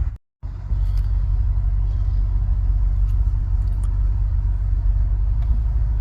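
Steady low rumble, with a short dropout to silence just after the start.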